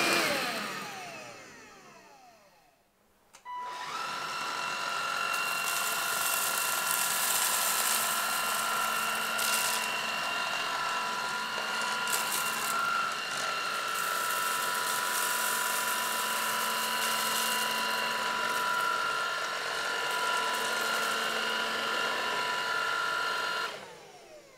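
Bosch BBH214 cordless vacuum cleaner's motor winding down, its pitch falling. It switches on again with a click about three and a half seconds in and runs with a steady whine while the floor nozzle sucks up crumbs. It is switched off near the end and winds down again.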